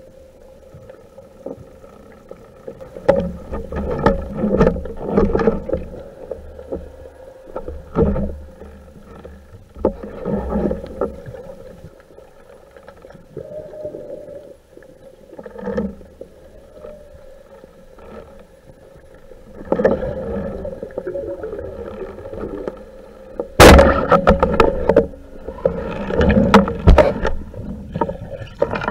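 Underwater sound picked up by a camera mounted on a speargun: muffled water noise and irregular knocks and rubbing from the diver's movements. About two-thirds of the way through comes a sudden sharp crack, followed by a busy run of knocks and bubbling.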